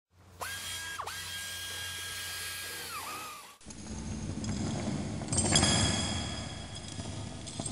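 A power tool whirring at a steady pitch for about three seconds, dipping briefly about a second in and then winding down. It is followed by metal clattering with ringing clinks that grow louder near the end.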